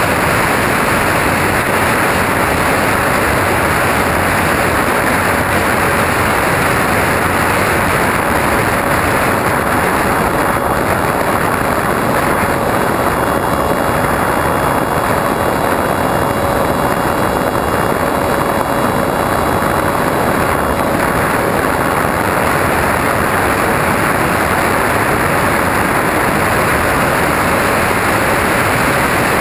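Airflow rushing steadily over a camera riding on a flying RC plane, with the even hum of the plane's motor and propeller. A faint higher whine joins in for several seconds in the middle.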